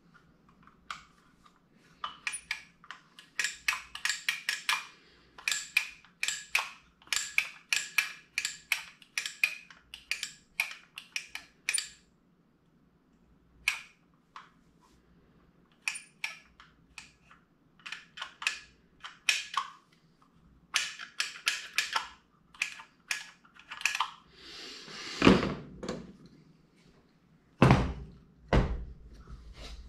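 Quick runs of small metallic clicks and taps as a screwdriver works on a Ford flathead V8 carburetor during assembly, then a few heavier thumps near the end as the carburetor is handled and set down on a wooden block.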